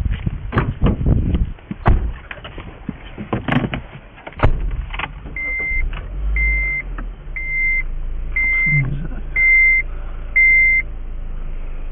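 Knocks and a thud, then a car engine running low and steady while the seatbelt reminder beeps six times, about once a second: the driver's belt is unbuckled.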